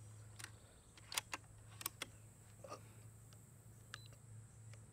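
Faint small clicks and ticks, some in quick pairs, from the FX Wildcat MK2 .25 PCP air rifle being handled at its side lever, over a low steady hum.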